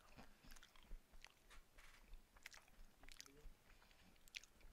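Faint chewing: soft, irregular mouth clicks and smacks of a person eating, just above near silence.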